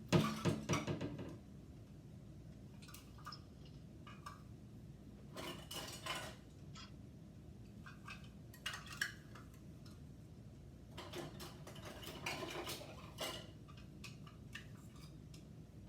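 Measuring cups and kitchen utensils clattering and clinking as someone rummages through them, with a louder clatter at the start and then several short bursts of clinks.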